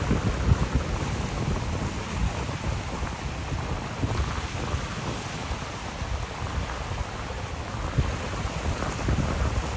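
Caspian Sea surf washing on the shore: a steady rushing noise with low rumbling surges.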